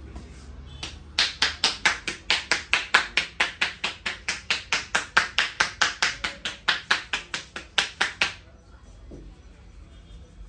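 Quick, even hand claps of a barber's percussive head massage, about four or five a second, starting about a second in and stopping abruptly some seven seconds later.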